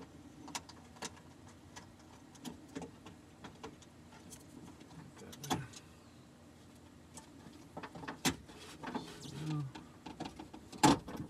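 Scattered light clicks and metallic clunks as a power-window regulator and motor are handled and lined up inside a car's door shell, with one louder knock near the end.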